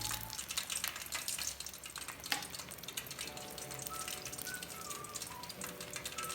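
Food frying in hot oil: a steady dense crackle and sizzle, with light background music over it.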